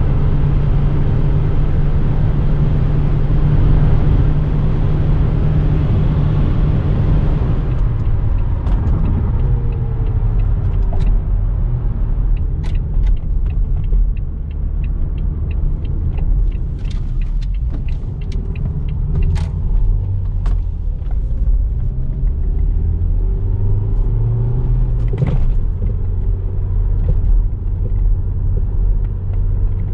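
Turbocharged 2.0-litre inline-four petrol engine (Renault F4R) of a Renault Grand Espace running on the road with a steady hum and rushing road and wind noise. About seven seconds in, the rushing noise falls away and the engine note drops lower, with a few slow rises and falls in pitch and scattered light clicks after that.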